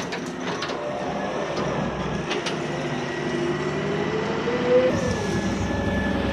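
An engine running steadily, its pitch rising slowly and then dropping away about five seconds in.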